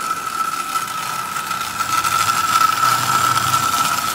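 Marx prewar single-reduction toy train motor running a locomotive on track, with a steady high tone over a rough noise; it "sounds like a lawnmower". Its armature shaft is rusted thin and slops around in the brush plate, with the bearing surface gone.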